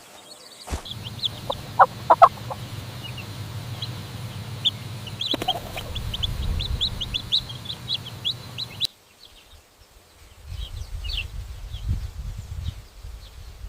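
Chickens clucking, with a few short calls about two seconds in and many short high chirps, over a steady low rumble. The sound cuts off suddenly about nine seconds in. After a brief quiet comes a different outdoor sound: low rumbling with a few chirps.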